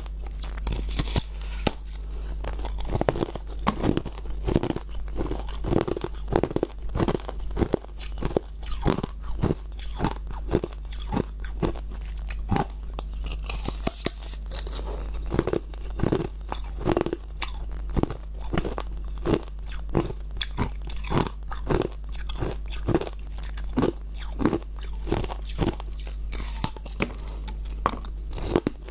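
Thin sheets of ice being bitten and chewed close to the microphone: a steady run of sharp, irregular crunches and cracks, a few each second.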